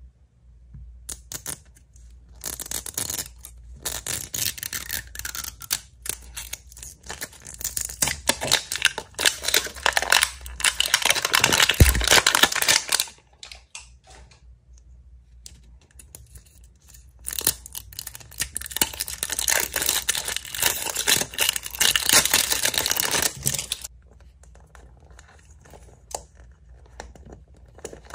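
Plastic wrapper being crinkled and torn off a 5 Surprise toy ball, in a long spell of crackling and ripping. After a short pause a second long spell of crinkling follows. Near the end there are only light clicks as the plastic capsule is handled.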